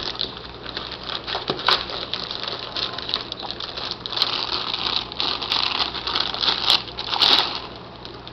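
Thin plastic packaging bag crinkling and crackling unevenly as the radio inside it is lifted and handled, with the loudest sharp crackles near the end.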